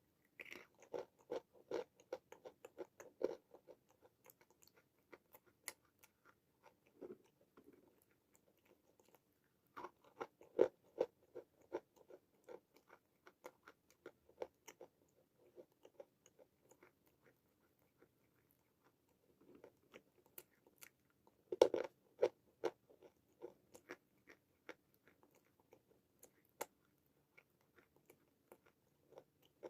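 Dry chunks of white khadi, an edible white clay chalk, bitten and crunched close to the microphone: three bursts of sharp crunching bites, near the start, about ten seconds in and about twenty seconds in, with quieter chewing crunches in between.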